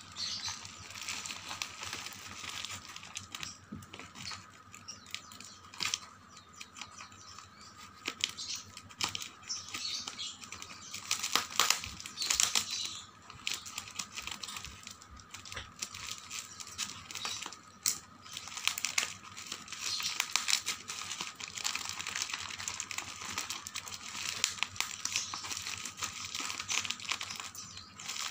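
Scissors snipping through a parcel of cardboard and packing tape, with the tape and plastic wrapping crinkling and tearing as it is pulled open by hand. The noise comes in irregular crackly spurts, loudest about halfway through.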